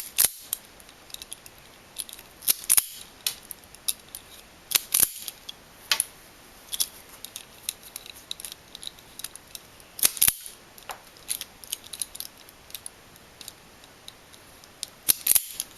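Wire strippers snipping and clicking as new electrical wire is cut and its insulation stripped: sharp snips at irregular intervals, with about six louder ones.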